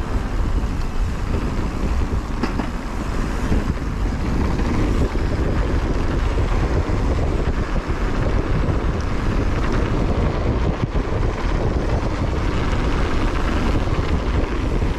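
Steady wind noise on the microphone with the rumble of a mountain bike rolling down a dirt trail.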